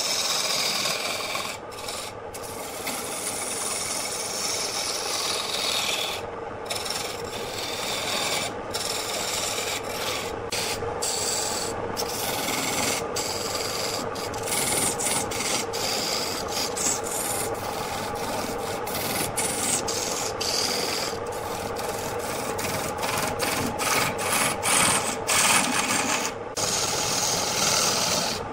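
Hand turning tool cutting a spinning wooden blank on a lathe: a continuous scraping rasp as shavings come off, broken by many brief gaps.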